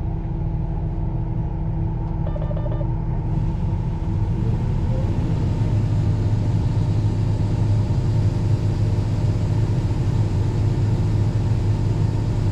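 Corn combine running, heard from the cab: a few short electronic beeps about two seconds in, then the engine and threshing machinery rise in pitch and level as it is brought up to working speed to start cutting, and hold a steady, louder hum.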